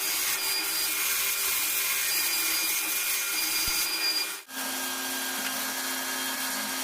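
A power tool working wood, running steadily with a hissing noise over a few steady tones. It breaks off sharply about four and a half seconds in, then resumes with a lower steady hum.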